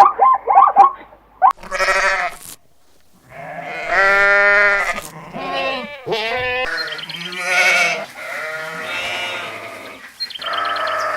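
Bleating livestock: about half a dozen long, wavering bleats one after another.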